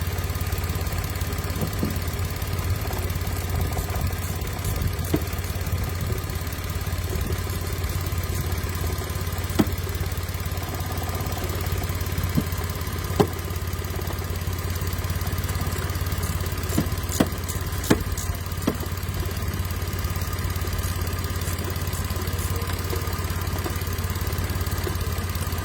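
Mitsubishi Mirage engine idling steadily, now running after the no-start fault was fixed, with a few sharp clicks heard over it, several close together past the middle.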